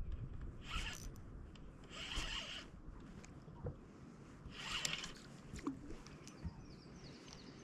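Three brief rasping rustles, each about half a second long, with a few faint clicks between.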